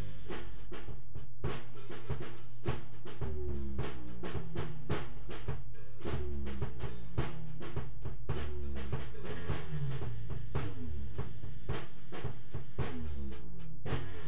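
Live jam music: drums keeping a steady beat with kick and snare under a low bass line whose notes slide up and down.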